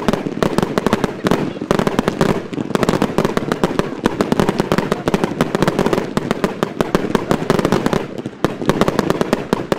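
Fireworks finale: a dense, unbroken barrage of aerial shell bursts and crackling, many bangs a second, easing briefly about eight seconds in.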